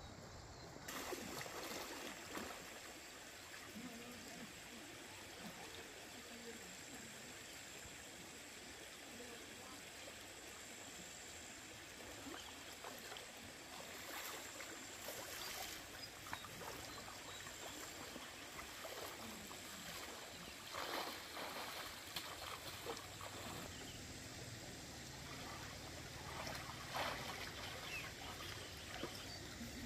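Stream water trickling, with a few brief splashes, over a steady high-pitched insect drone.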